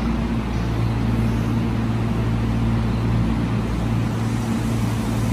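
Tobu Noda Line electric commuter train moving slowly along the station platform: a steady low hum over a constant running noise.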